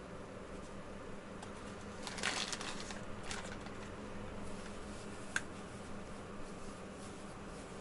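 Faint handling noises as hands move wool roving over a foam felting mat: a short run of soft rustles about two seconds in, another brief rustle soon after, and a single sharp click about five seconds in, over a steady low hum.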